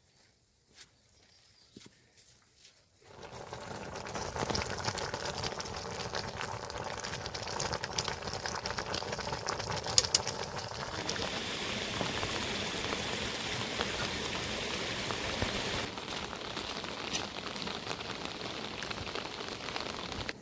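Food frying in hot oil in a pan: a dense crackling sizzle that starts suddenly about three seconds in and keeps on steadily, turning brighter about halfway through.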